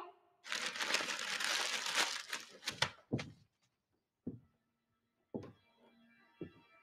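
A short burst of applause for about two and a half seconds. Then come a few slow, single footsteps about once a second, while faint soft music tones begin underneath.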